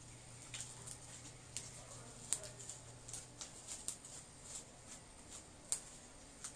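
Activated slime being mixed in a glass bowl: faint, irregular sticky clicks and squelches, over a steady low hum.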